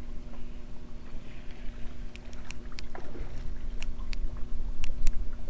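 Steady low outdoor rumble with a faint constant hum. Several sharp clicks come between about two and five seconds in, with a brief falling squeak among them.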